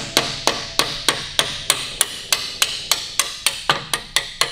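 A hand tool working a bolt on the Indian 741B's engine casing: a quick, even run of sharp metallic taps, about three to four a second, each ringing briefly.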